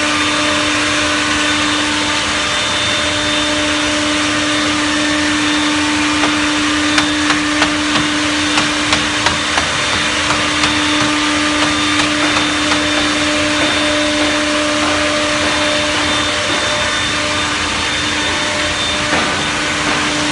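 Multi-spindle CNC mortising machine running with a loud, steady hum on one held pitch. In the middle there is a run of short, evenly spaced pulses, about two or three a second.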